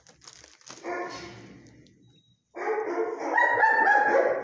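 Music playing with dogs barking in a shelter kennel block, much louder from about two and a half seconds in.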